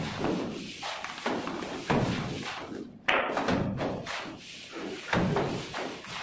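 Cement-and-sand mortar thrown onto a wall with a plastic scoop: a series of thuds, about one a second, the sharpest about halfway through.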